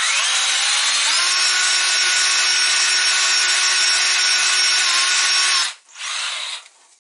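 Power drill spinning a soapy rag on a long rod inside a small-block Chevy 400's cylinder bore, scrubbing the honing residue out. The motor's whine climbs in pitch over the first second and holds steady over the rubbing of the rag, then stops short just before 6 s and comes back for a brief burst.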